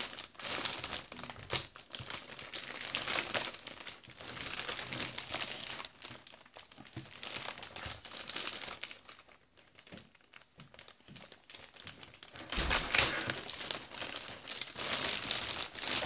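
Thin clear plastic bag crinkling and rustling as it is pulled and handled around a plastic toy shopping trolley, dying down briefly about two-thirds of the way through. A thump comes soon after, followed by louder rustling.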